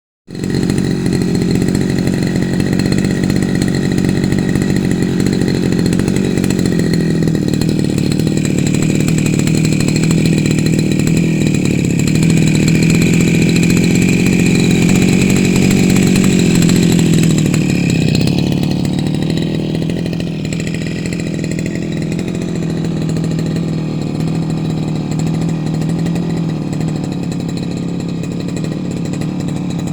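A small engine running steadily, its speed rising a little through the middle and settling back lower about eighteen seconds in.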